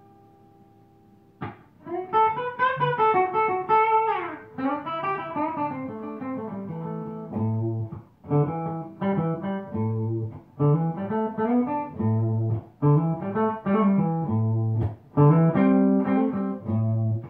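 Background music: a melody of separate notes over a repeating bass line, starting about a second and a half in after a fading note.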